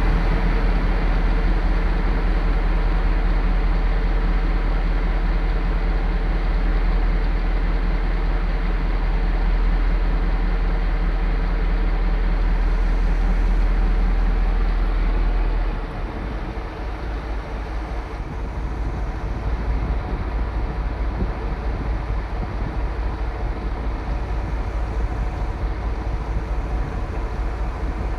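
Heavy construction machine's engine running steadily with a deep rumble; about halfway through it drops in loudness and the low rumble turns rougher.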